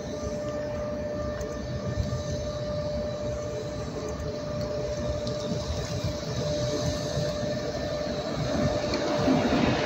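DB Class 111 electric locomotive hauling a regional train approaching, a steady tone over a rumble that grows louder near the end as the train draws closer.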